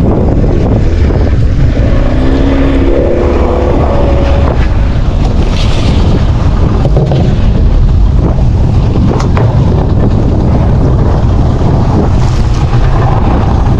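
Small fishing boat's motor running under way, with strong wind buffeting the microphone and water rushing past the hull.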